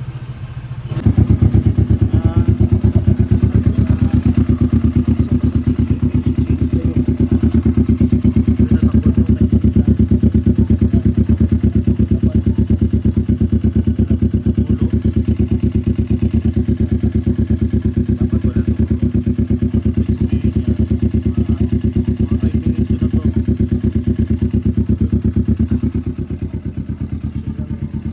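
Kawasaki Vulcan S 650 parallel-twin engine running steadily with fresh oil, a fast even beat of firing pulses. It gets much louder about a second in and drops back a little near the end.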